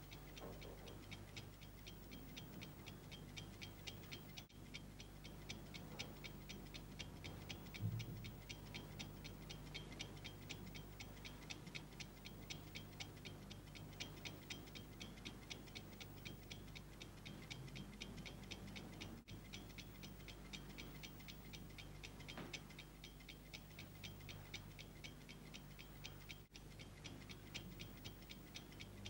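Alarm clock ticking with quick, even ticks over a low steady hum.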